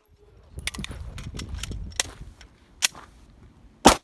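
Gunshots at a shooting range: a quick run of quieter cracks in the first two seconds, then single louder shots about two, three and four seconds in, the last the loudest.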